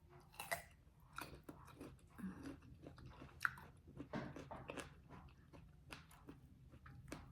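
A person chewing a bite of peeled, ripe persimmon close to the microphone: quiet, irregular wet mouth clicks and smacks.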